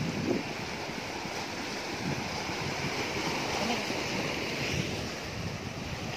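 Sea waves breaking and washing over shoreline rocks: a steady surf wash.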